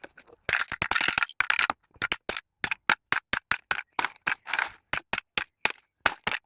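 A rapid string of short knocks and clatters, several a second, with a few longer scraping bursts, each cut off sharply into dead silence.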